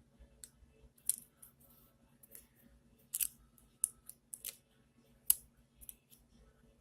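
Irregular small, sharp clicks and taps of fine repair tools and tiny parts being handled inside an opened iPhone 7 Plus as a charging-port flex cable is seated and lined up.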